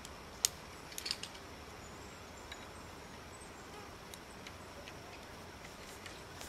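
Quiet outdoor background with a few sharp clicks: one about half a second in, a quick cluster around a second in, then a few fainter ticks.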